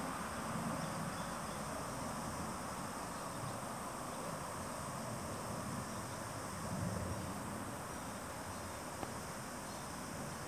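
Steady high-pitched insect chorus over a faint outdoor hiss, with no clear bird calls standing out.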